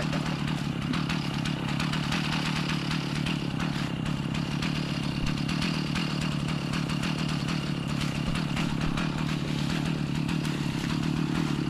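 Two-stroke chainsaw engine running at a steady speed.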